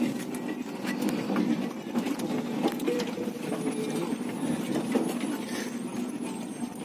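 BharatBenz diesel truck running along a rough gravel road, heard from inside the cab: a steady low engine hum with scattered rattles and knocks from the cab jolting over the unpaved surface.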